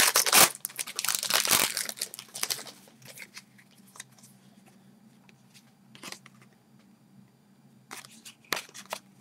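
Foil trading-card pack wrapper being torn open and crinkled, loud for the first two to three seconds, followed by a few faint taps.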